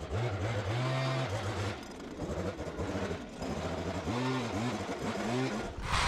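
Handheld petrol leaf blower running, its engine note rising and falling.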